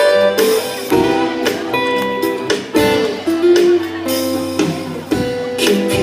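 Instrumental intro of a Thai pop ballad played by a band, led by strummed guitar chords, with a new chord struck about once a second.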